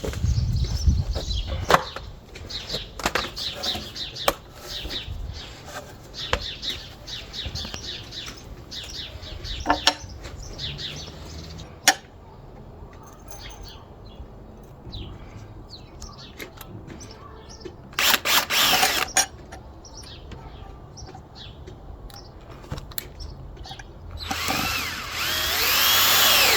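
Power drill driving screws to fix metal brackets onto a wooden container, in short bursts with pauses between: one at the start, one about two thirds of the way in and a longer one near the end. Small birds chirp in the pauses.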